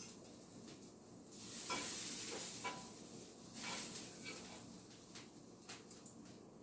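Steak sizzling in a frying pan, with a few light clicks and scrapes of a utensil against the pan.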